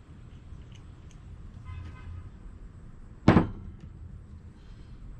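A single sharp metal clank, a tool or engine part striking metal, about three seconds in, over a low steady hum. A faint short tone sounds about a second before it.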